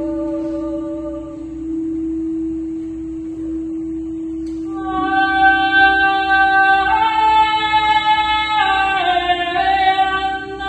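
Crystal singing bowl sounding one steady ringing tone. About halfway through, a woman's voice comes in over it, singing long wordless notes that step between pitches in a slow melismatic line.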